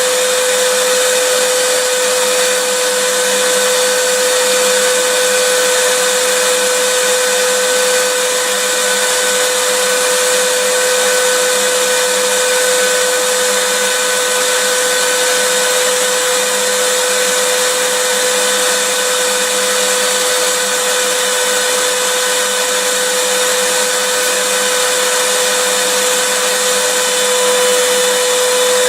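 Vacuum cleaner running continuously at a steady pitch, a loud even whooshing hiss with a constant motor whine.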